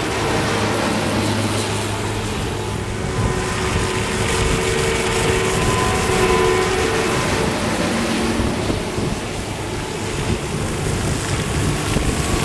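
A New Holland combine harvester and then a farm tractor with a tipper trailer driving past on a wet road: engines running under an even hiss of tyres through the water. The combine's engine tone fades about two seconds in, and the tractor's engine comes up near the end.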